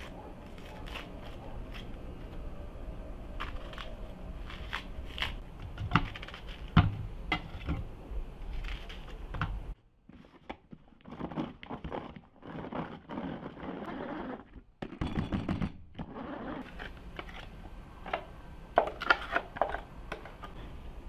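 A knife peeling and cutting a red onion, with scattered clicks and knocks. Then, about ten seconds in, a hand-cranked manual food chopper chops onion pieces in several short bursts, followed by clicks and scrapes of a wooden spatula scraping the chopped onion out of the chopper bowl.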